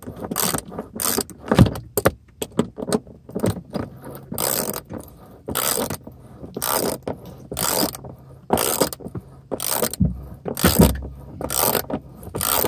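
Hand socket ratchet clicking in quick bursts as it is swung back and forth, undoing the lower seat belt anchor bolt in a car. A few dull knocks come between the bursts.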